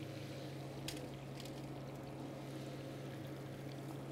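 Quiet, steady kitchen background: a constant low hum with a faint hiss of pans bubbling on the hob, and a couple of light clicks of a metal spoon against the frying pan about a second in.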